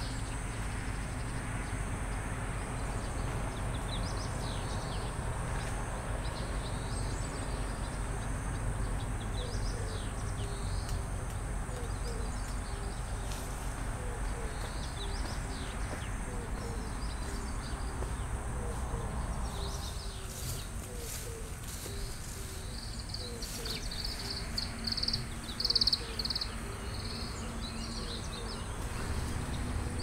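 Outdoor ambience of small birds chirping now and then, over a steady high insect drone and a low rumble; the loudest moment is a quick run of high chirps a little over three-quarters of the way through.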